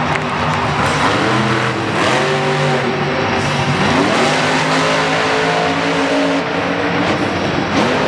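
Supercharged monster truck engines revving in repeated bursts, each held for about a second before dropping off, with pitch sweeping up about four seconds in and again near the end.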